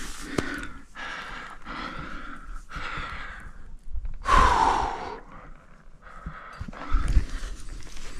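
A rock climber breathing hard in quick breaths while climbing, with one louder, longer exhale about four seconds in.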